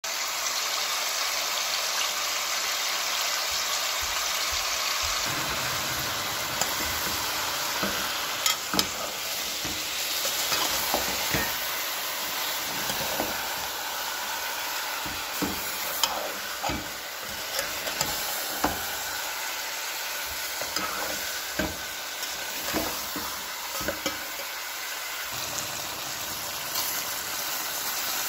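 Spiced chicken pieces sizzling in hot oil in a metal pot, a steady hiss, with a spoon knocking and scraping against the pot now and then as it is stirred.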